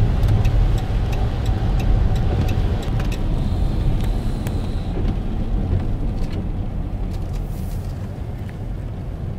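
Road noise inside a moving vehicle on a rain-wet road: a steady low rumble with tyre hiss and a few faint clicks, easing slightly near the end.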